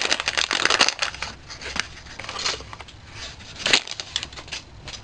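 Crinkling and crackling of a small package's wrapping being torn open and handled by hand. It is densest for about the first second and a half, then thins to scattered crackles, with one louder crackle near the end.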